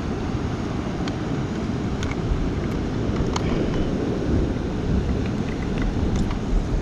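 Wind buffeting the microphone over the steady rumble of ocean surf, with a few faint clicks.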